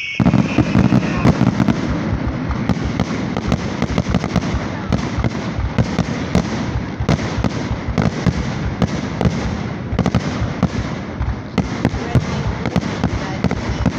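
Fireworks going off in a dense, continuous barrage of sharp bangs and crackling pops. The barrage starts abruptly at the outset.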